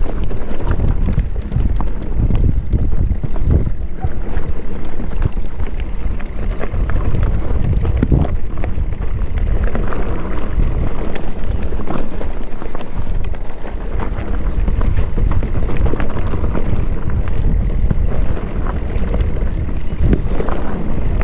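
Wind buffeting the microphone in a loud, steady low rumble, with frequent short knocks and rattles from a mountain bike riding over rough trail.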